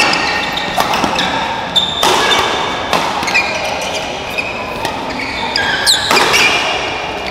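Badminton rally in a large hall: several sharp racket-on-shuttlecock hits, with short high squeaks from players' shoes on the court floor over steady hall noise.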